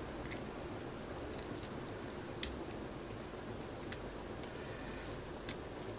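A few faint, scattered light clicks of small beads and wire being handled, over low steady room noise.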